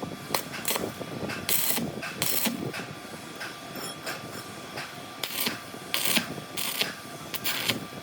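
Metalworking on a tractor planetary gear: short bursts of metal scraping and clanking, about eight of them at irregular intervals, over a steady workshop background.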